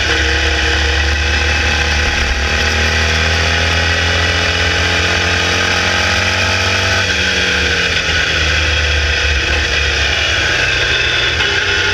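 Formula Vee's 1200cc air-cooled Volkswagen flat-four engine at racing speed, recorded onboard, climbing slowly in pitch for several seconds, then dropping sharply about seven seconds in and running on at a steadier pitch, with a constant rush of wind and road noise.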